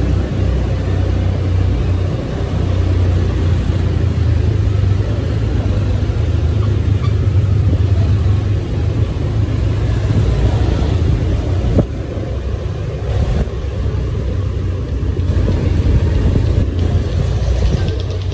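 Moving road vehicle: a steady low rumble of engine and road noise.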